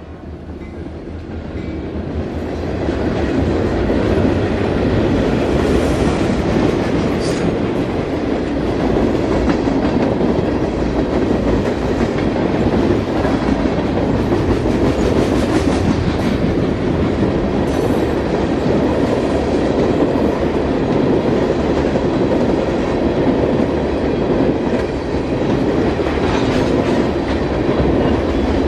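Wheeling & Lake Erie freight train with work train cars rolling past on the rails, a steady heavy rumble of wheels and cars that builds over the first few seconds and then holds.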